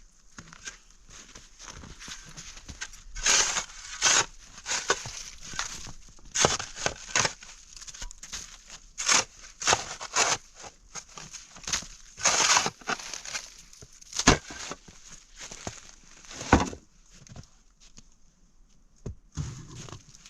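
Footsteps crunching through snow, an uneven run of steps with a couple of sharper knocks about two-thirds of the way in.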